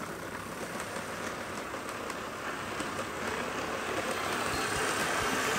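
N-gauge model train, a C11 steam locomotive with passenger coaches, running on its track: a steady whirring rattle of the motor and wheels with faint clicks, growing louder toward the end.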